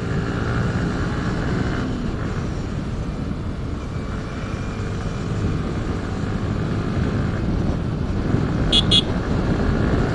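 Yamaha R15 V3's single-cylinder engine running steadily under way, with steady road and wind rush on the rider's microphone. Two quick high-pitched toots near the end.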